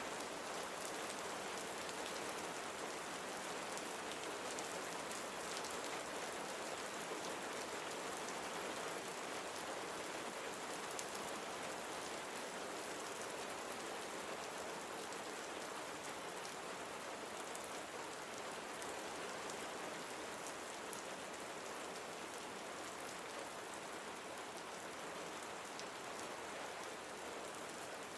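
Steady rain falling and pattering on surfaces, a continuous even hiss with fine drop ticks, easing very slightly toward the end.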